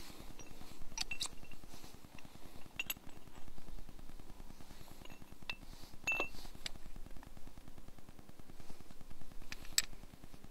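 Scattered sharp metallic clicks and clinks, one about six seconds in with a brief ringing tone, over a steady low rumble.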